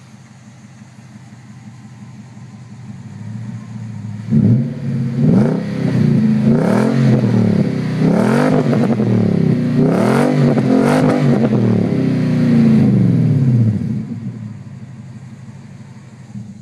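Nissan Armada's 5.6-litre V8 heard at the tailpipe through an aftermarket Magnaflow exhaust: idling steadily, then revved several times from about four seconds in, each rev climbing and falling back, before settling to idle again near the end.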